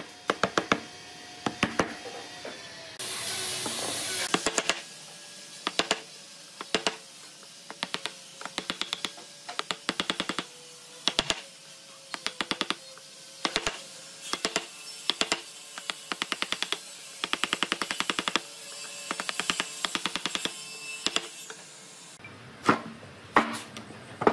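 Hand chisel chopping and paring into old railway-sleeper timber, prying out rotten wood: bursts of quick, sharp cracks and clicks that come in clusters, with a second-long rush of noise about three seconds in.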